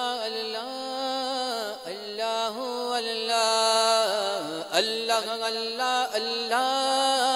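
Wordless vocal introduction to an Urdu devotional song (hamd): a melody sung without words, bending and wavering in pitch over a steady held drone.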